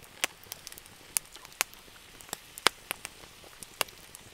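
Campfire crackling: irregular sharp pops and clicks, some louder than others, about a dozen over a few seconds.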